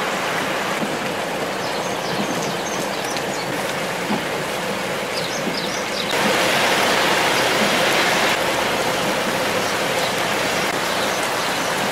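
Heavy rain falling on a wet, waterlogged road, a steady hiss of rain and running water that gets louder for a couple of seconds about six seconds in.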